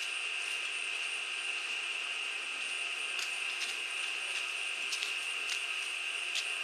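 Stick welding arc burning steadily while a bead is run: an even hiss with occasional sharp crackles and pops.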